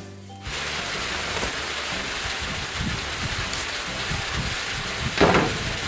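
Heavy rain falling as a steady hiss that starts abruptly about half a second in, with a brief louder burst about five seconds in.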